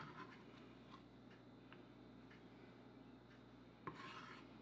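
Faint, irregular taps of a chef's knife chopping garlic on a wooden cutting board, with a sharper knock and a short swish about four seconds in.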